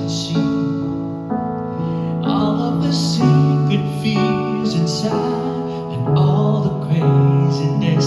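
Music: held sung or played notes changing pitch every second or so, with keyboard accompaniment.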